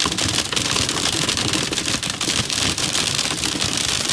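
Heavy rain pelting a moving vehicle's windshield and body, heard from inside the cabin: a dense, steady patter of many small hits.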